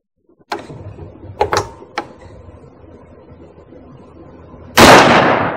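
A few sharp clicks of rifle handling, then a single very loud shot from an I.O. AKM-47 7.62×39 rifle near the end, its report dying away over about a second.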